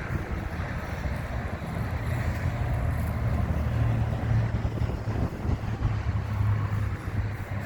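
Wind rumbling on the microphone over a steady low engine hum that grows a little louder about two seconds in.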